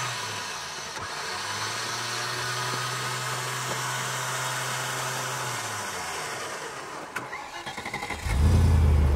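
Off-road Range Rover P38 engine running with a steady low hum and hiss. About eight seconds in it becomes a much louder, low, rapidly pulsing rumble, typical of an engine catching or being revved.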